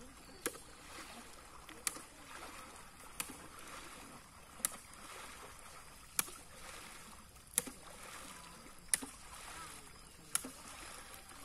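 Water sloshing and swishing as people wade through a muddy canal dragging mosquito-net seines. A sharp click sounds about every second and a half.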